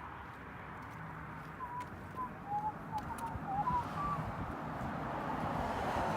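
A bird chirping a quick string of short high notes over a steady low hum and outdoor background noise.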